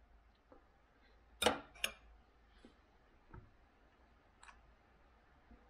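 Knife and fork clinking against a plate twice, about one and a half seconds in, as they are set down, followed by a few faint clicks over quiet room tone.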